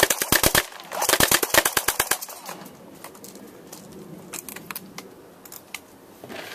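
Airsoft HK MP5 firing on full auto in two rapid bursts of sharp clicks, the first stopping about half a second in and the second lasting about a second. No BBs are coming out: the gun is jamming. A few scattered faint clicks follow.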